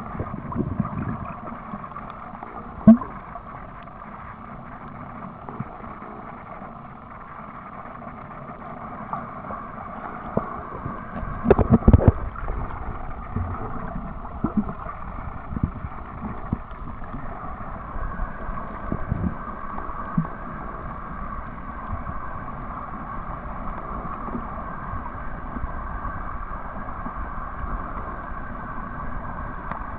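Muffled, steady water noise picked up by a camera held underwater, with a sharp knock about three seconds in and a short cluster of knocks near the middle as the camera is bumped or handled.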